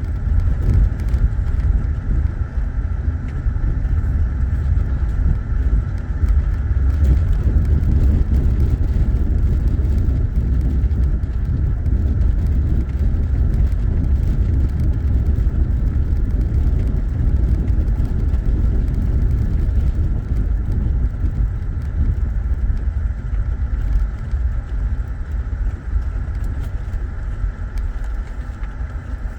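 Steady low road rumble of a 2008 Saturn Vue driving, heard inside the cabin, with scattered faint clicks and rattles.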